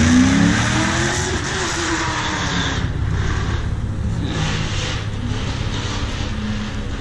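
Car engine revving loudly: the pitch rises around the start and sinks over the next second or two, then the engine keeps running with a steady low rumble and a rough exhaust hiss that swells and fades.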